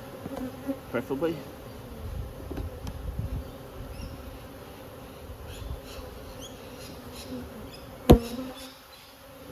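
Honey bees buzzing steadily around an open hive being worked. About eight seconds in there is one sharp knock, the loudest sound.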